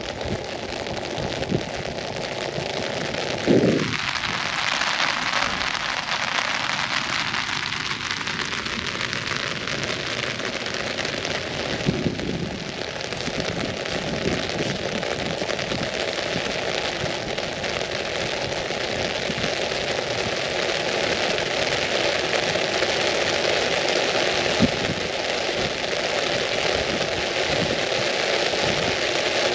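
Steady rain falling on an umbrella overhead, an even hiss broken by a few short knocks, the loudest about three and a half seconds in. Between about four and nine seconds in, the hiss swells and its tone sweeps down and back up.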